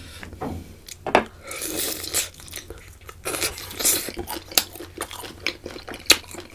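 Close-up eating sounds: irregular bites and chewing of octopus and prawns, with crunchy, wet mouth noises coming in short clusters.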